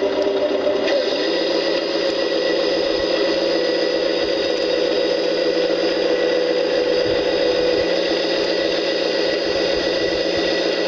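Simulated Scania truck diesel engine sound from the Tamiya RC truck's electronic sound unit, played through its small speaker. The engine note shifts to a slightly higher, busier running speed about a second in and then holds steady.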